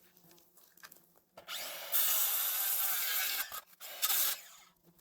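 Cordless reciprocating saw cutting deadwood: about two seconds of rasping sawing starting around a second and a half in, a few clicks, then a shorter burst near four seconds. The blade is one the user thinks needs replacing.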